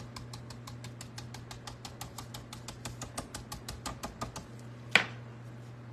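Stencil brush dabbing paint through a stencil onto a painted board: a quick run of light taps, about eight a second, then one sharper knock about five seconds in.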